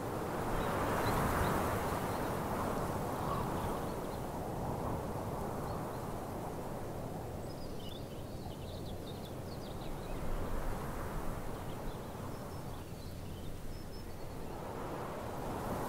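Rural outdoor ambience: a steady rushing noise that swells at the start and again near the end, with faint high bird chirps around the middle.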